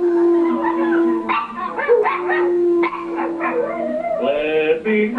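A small dog howling in long held notes, with a man howling along.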